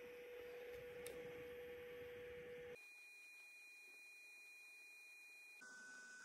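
Near silence with a faint, steady pure tone that jumps abruptly to a higher pitch about three seconds in, then drops to a somewhat lower pitch near the end.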